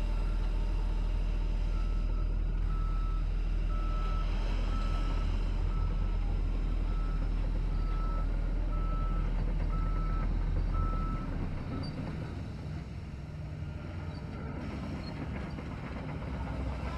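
Heavy diesel earthmoving machine running loudly while its reversing alarm beeps about once a second. About eleven seconds in, the beeping stops and the engine note drops, and the engine runs on more quietly.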